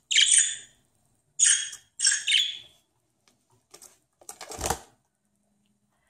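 Budgerigar chirps in three short bursts of high, bright chirping over the first three seconds. About four and a half seconds in comes a brief flurry of wingbeats as the budgie flutters down.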